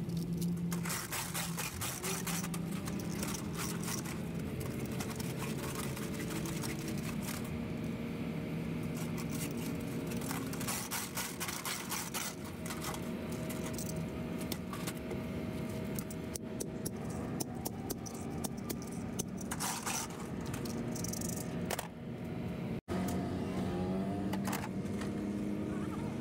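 A steady engine hum in the background, with frequent clinks and scrapes of a tapered roller bearing being handled and washed in a metal pan.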